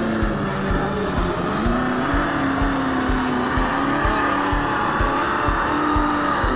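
Background music with a steady kick-drum beat, about three beats a second, under sustained bass notes that step up in pitch about two seconds in.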